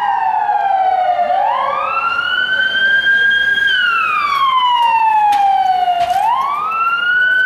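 Ambulance siren wailing loudly in a slow cycle: the pitch falls, climbs quickly about a second and a half in, holds high, then falls again and climbs once more near the end.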